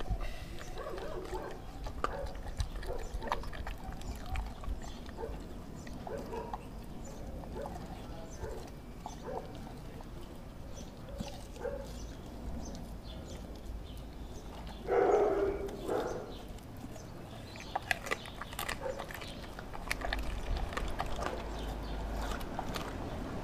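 A Doberman eating raw chicken, organ meat and chicken feet from a stainless steel bowl: wet chomping and chewing in short irregular bouts, with a louder burst about fifteen seconds in and sharp clicks near the end.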